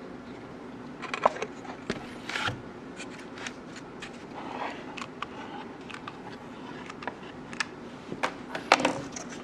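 Scattered light knocks, clicks and scrapes of objects being handled, over a low steady hum; no power tool is running.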